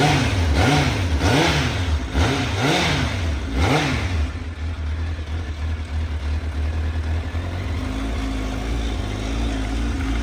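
1998 Honda CBR1000F's inline-four engine revved in about six quick throttle blips, then settling to a steady idle from about four seconds in. It is still on cold start, idling on the choke.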